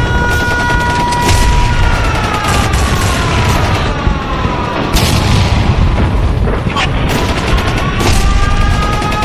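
Air-raid siren wailing over a constant rumble of explosions and bursts of gunfire. The siren holds a steady two-note tone, slides down in pitch for a few seconds, then winds back up.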